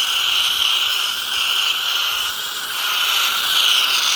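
Steady hissing spray from a washing wand as a chlorine and detergent mix is applied to mouldy slate pavers.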